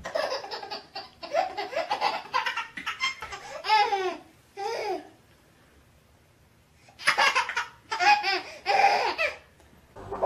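A baby laughing in fits of short, rapid laughs. The laughter pauses for about two seconds midway and then starts again.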